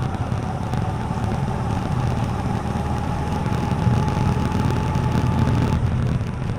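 TVS Apache RTR 4V motorcycle engine running steadily while riding, a low, even rumble.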